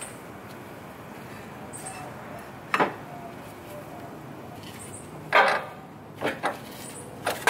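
Several short metallic clunks and knocks, about five over the stretch with the loudest a little past halfway, as a front CV axle is worked loose from the hub and knuckle by hand.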